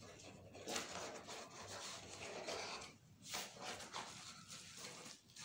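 Small cardboard box being opened by hand: cardboard rubbing and scraping in uneven spells, with sharper scrapes about a second in and a little past three seconds.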